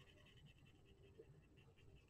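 Near silence, with faint light rubbing from hands cleaning the calculator's keyboard contact board.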